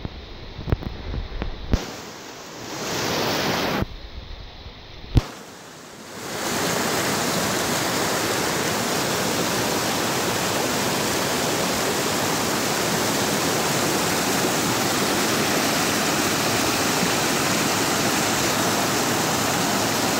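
Mountain stream rushing over boulders in small cascades, a steady rush of white water. The first six seconds are quieter and uneven, with a few sharp clicks.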